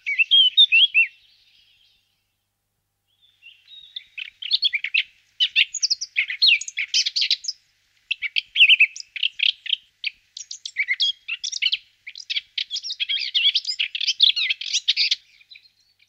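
Eurasian blackcap singing: rapid, jumbled warbling phrases, one after another with short pauses, after a gap of about two seconds near the start.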